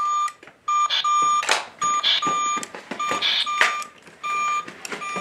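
Monster Treads toy tractor's electronic reverse beeper: a string of short, high, steady beeps at one pitch, about two a second, with short scuffing noises between them.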